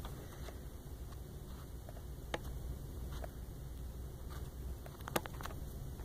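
Faint room tone with a steady low hum and a few light clicks, the clearest about two seconds in and near the end.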